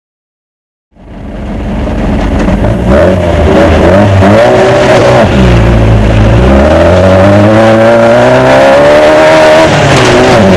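Desert off-road race car's engine heard from onboard, fading in about a second in and then running hard. Its pitch climbs and drops again and again as the car accelerates and lifts off.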